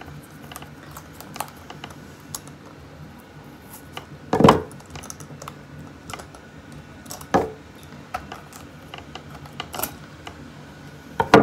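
Kitchen handling sounds: scattered light clicks and clinks of utensils against a pot, with a few louder knocks, while softened leaves are worked off a boiled cabbage head.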